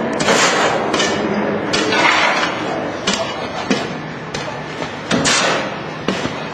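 Concrete hollow-core wall panel extrusion machine running: a steady mechanical noise with irregular loud knocks and bangs, about one or two a second.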